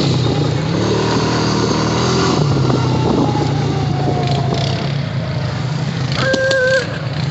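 ATV engine running under way, its pitch rising and falling as the throttle is worked. A short steady tone sounds about six seconds in.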